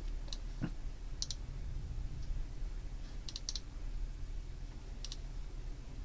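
Computer mouse clicking: about half a dozen short, sharp clicks, some in quick pairs, spread over a few seconds, over a faint steady low hum.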